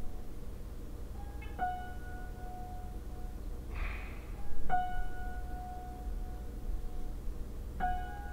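Sparse film-score music: a single high struck note, repeated three times about every three seconds and left to ring out, over a steady low drone, with a brief hiss about four seconds in.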